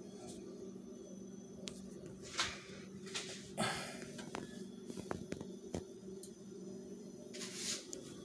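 Faint handling noises: a few soft scrapes and light clicks, the longest scrape about three and a half seconds in and another near the end, over a steady low hum.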